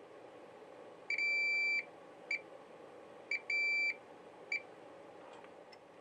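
Fluke 289 multimeter's test beeper sounding as its probes touch a capacitor's pads, signalling continuity to ground on one side. It gives a steady high beep: two longer beeps of under a second each and three short chirps in between.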